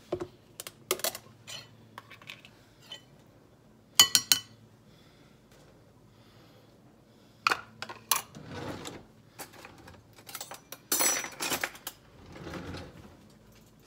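Kitchen clatter: scattered clinks and knocks of utensils and containers on the counter and glass mixing bowl, the sharpest about four seconds in, with a busier rattle of utensils near the end.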